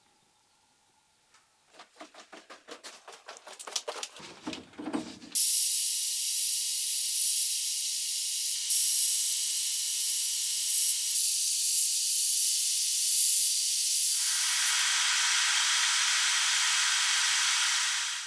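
A run of short strokes, about three or four a second and growing louder, then a loud, steady hiss. The hiss starts suddenly, deepens about nine seconds later, and cuts off suddenly.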